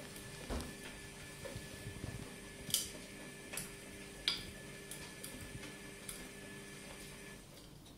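Scattered, irregular light clicks and taps of a kitten's paws and claws on a laminate floor, over a faint steady hum that stops near the end.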